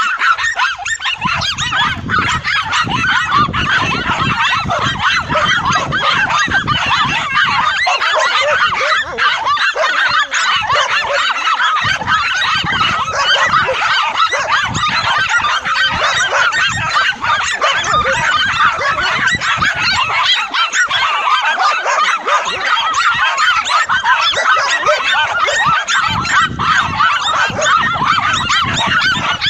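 Several dogs barking and yelping in a continuous, overlapping din, with honk-like cries mixed in.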